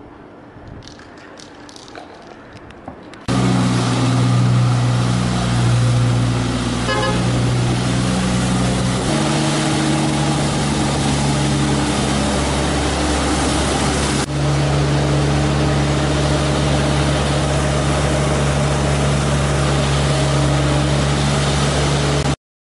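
Compact street sweeper running close by: a loud, steady engine and fan drone with a low hum and noisy rush. It starts abruptly about three seconds in and cuts off just before the end, after faint street ambience.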